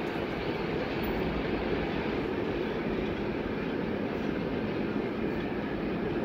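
Freight train moving away down the line, heard at a distance as a steady, even rolling noise.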